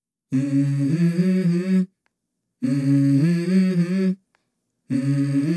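A voice humming a short tune without words, in phrases about a second and a half long that each step up in pitch partway through. Gaps of silence fall between the phrases, and a third phrase begins near the end.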